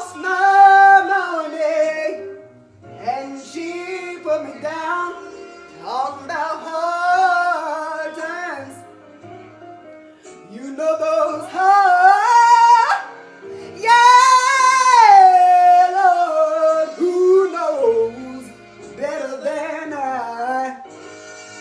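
A woman singing in a series of long, loud phrases with wavering vibrato and melismatic runs, pausing briefly between them.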